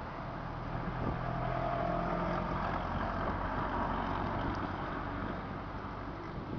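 A small car driving past on the road, its engine and tyres swelling about a second in and easing off near the end, over the rushing noise of a strong wind on the microphone.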